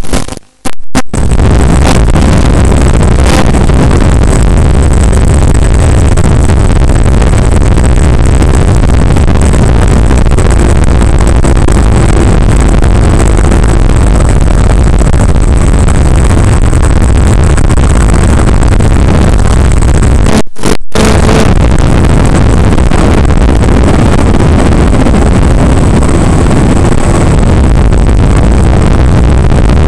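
Onboard sound of a Skywalker 1900 FPV plane in flight: its electric motor and propeller running steadily under loud wind rush. The sound cuts out briefly about half a second in and again around twenty seconds in.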